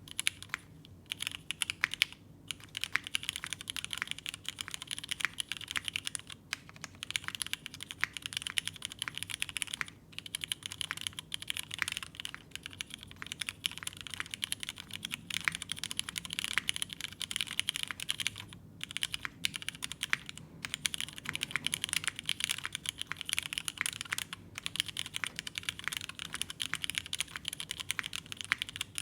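Typing on a custom mechanical keyboard with lubed vintage Cherry MX Black linear switches, an aluminium plate and ABS keycaps: a fast, steady stream of keystrokes, with a few short pauses.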